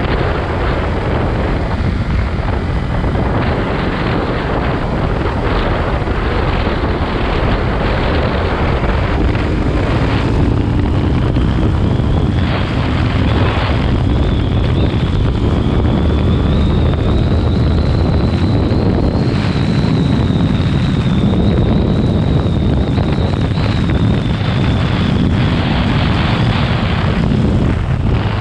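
Yamaha YZF-R3's parallel-twin engine running under heavy wind noise on the microphone while riding. From about ten seconds in, the engine note climbs slowly and holds, then drops away near the end.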